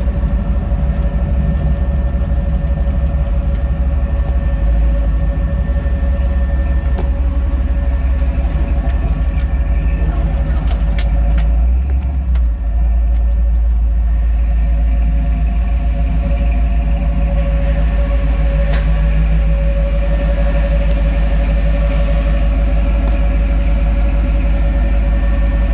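1977 Ford Bronco driving, heard from inside the cab: a loud, steady low rumble of engine and road noise with a steady whine over it. A few clicks come about ten seconds in, and the rumble dips briefly around twelve seconds in.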